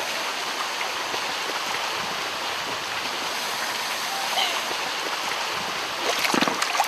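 Steady rush of water splashing in a swimming pool, getting louder and more uneven near the end.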